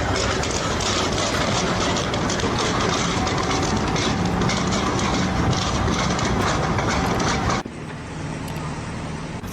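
Loud, continuous mechanical clatter and rumble of heavy machinery, stopping abruptly near the end and giving way to a quieter low hum.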